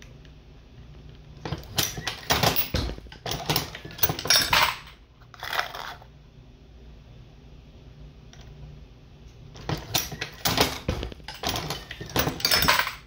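Dillon XL750 progressive reloading press being worked to load .223: metallic clinking and clattering of brass cases and cartridges against the steel press parts. It comes in two spells of a few seconds each, about eight seconds apart, with a single short clink between them.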